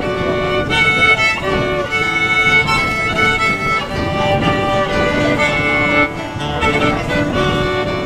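Fiddle playing the melody of an instrumental break over strummed acoustic guitar accompaniment.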